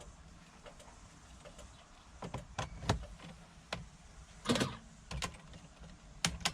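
Scattered light clicks and knocks from the ignition key being turned back and handled in a Mercedes Sprinter's ignition lock, with one louder knock about four and a half seconds in.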